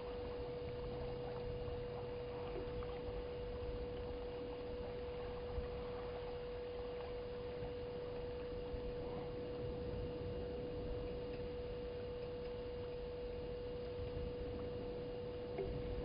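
A steady mid-pitched hum on a single unchanging pitch over faint background hiss, with a couple of brief faint ticks.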